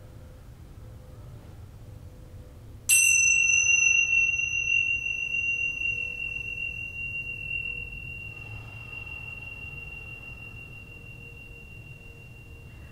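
A small metal chime struck once about three seconds in, ringing with a single high, clear tone that fades away slowly over about ten seconds.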